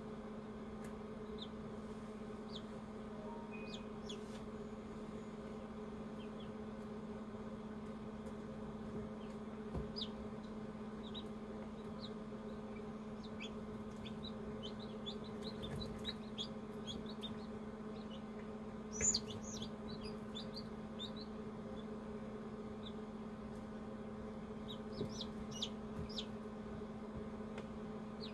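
Newly hatched chicks peeping in short, scattered high chirps inside an incubator, with one louder peep about two-thirds of the way through. Under them runs the incubator's steady electric hum.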